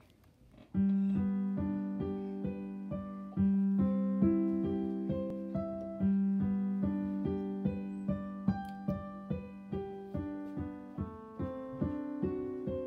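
Digital piano played with both hands: a gentle melody of single notes, about two a second, over a low note re-struck every two seconds or so. The playing begins about a second in.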